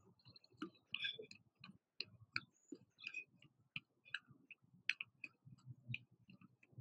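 Faint, light footfalls of sneakers on an exercise mat from jogging in place: soft taps about two or three times a second.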